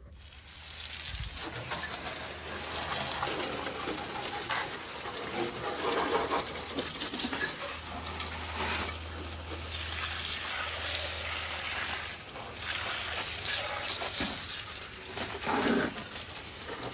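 Garden hose spraying water at light pressure into a car's engine bay, rinsing off soaked-in degreaser: a steady spatter of water on the engine and bay, starting suddenly.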